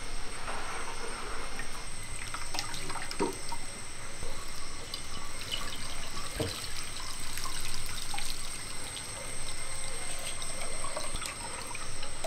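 Hands squeezing grated coconut in a bowl of water, then coconut milk poured through a plastic strainer into a clay bowl, trickling and dripping, with a couple of small knocks. A faint steady high whine sits behind it.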